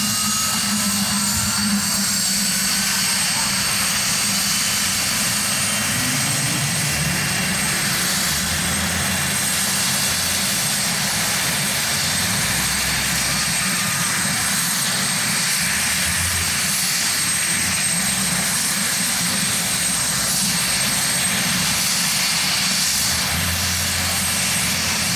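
UH-60 Black Hawk helicopter running on the ground with its rotor turning slowly. Its twin turboshaft engines give a steady high whine over a constant rushing noise, with no change in level.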